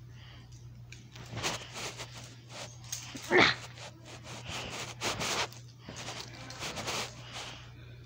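Heavy, breathy huffs of a boy straining to work his cuffed wrist free of a handcuff, several in a row, with one short squealing strained cry about three and a half seconds in.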